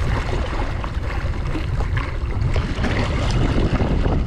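Wind noise on the microphone, with choppy sea waves slapping and splashing against the side of a stand-up paddleboard.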